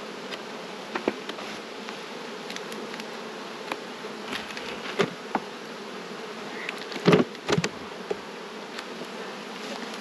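Honey bees buzzing steadily around an open hive, with a few short knocks from the wooden hive boxes and frames being handled, the loudest a close pair about two-thirds of the way through.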